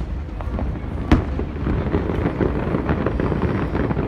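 Aerial fireworks bursting: one sharp bang about a second in, over continuous crackling pops and a low rumble.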